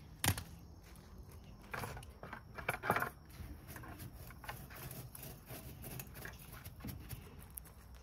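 Scattered crunches on loose gravel and light metal clinks as a wire rebar cage is handled and set into a cardboard concrete form tube, with a louder cluster of rattles about two to three seconds in.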